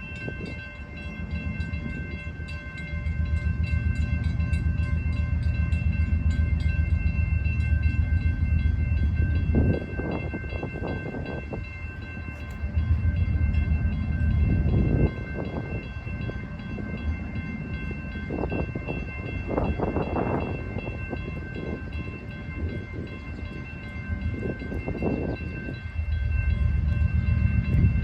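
CSX freight train passing with a loud, low rumble from the locomotive and rolling cars that swells and fades several times. Several steady high tones run throughout. The train's locomotive is reported to have a failed turbocharger.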